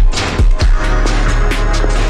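Background music with a steady beat: low kick drum hits and quick hi-hat ticks over sustained tones.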